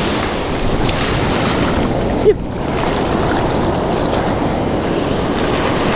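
Ocean surf washing up the beach in foamy swash, with wind buffeting the microphone. A brief sharp sound stands out about two seconds in.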